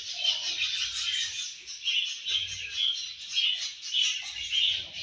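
Budgerigars chirping: a rapid, continuous run of short, high chirps and warbles.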